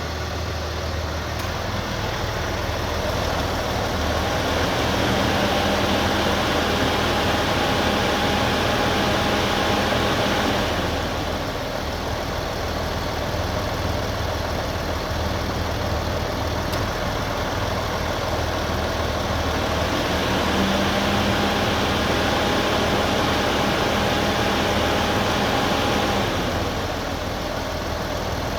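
Kia Mohave idling, with its radiator cooling fan speeding up twice for about seven seconds each time, adding a steady whine and a louder whoosh, then dropping back.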